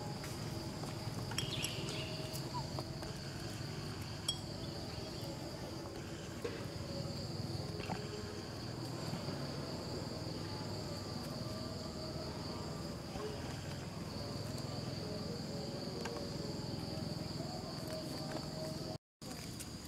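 Steady high-pitched drone of insects, with a low background rumble beneath it. The sound cuts out briefly near the end.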